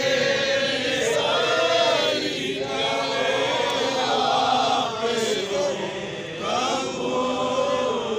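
Crowd of protesters chanting slogans together, one shouted phrase after another.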